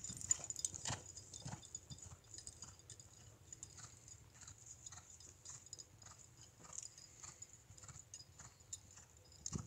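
Dull hoofbeats of a cantering horse on a soft sand arena, loudest in the first second or so as it passes close, then fainter as it moves away.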